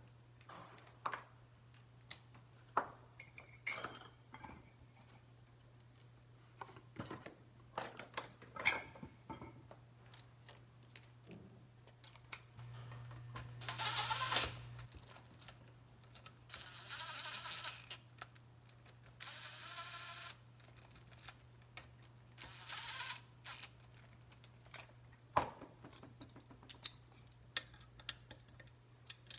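A DeWalt cordless driver running bolts into a motor mounting plate in four short runs in the second half, the first the longest and loudest. Between the runs come the clinks and taps of bolts and metal parts being handled.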